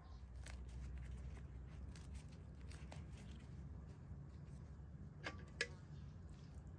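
A metal spoon clinking and scraping on an iron sadj griddle as it works through the oil of cooked chicken: a scatter of light clicks, with two sharper clinks close together about five seconds in.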